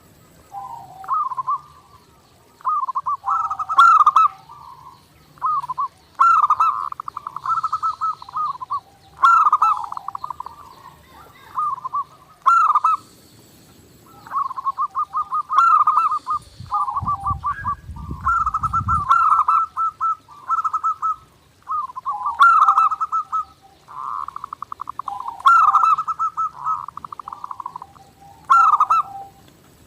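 Zebra doves (perkutut) cooing in repeated rhythmic, trilled phrases of a second or two each, with short gaps between them and a few sharp high chirps. A brief low rumble comes a little past the middle.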